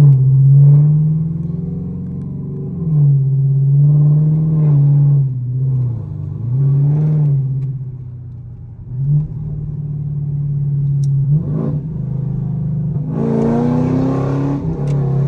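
Fifth-generation Chevrolet Camaro 2SS's 6.2-litre V8 revving over and over, its pitch climbing and dropping several times, with a harsher rising surge near the end.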